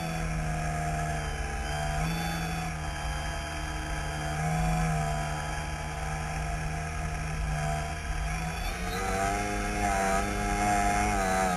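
Engine of a radio-controlled model airplane in flight, heard close up: a steady running note that shifts slightly with the throttle and rises a little near the end, with wind rush on the microphone.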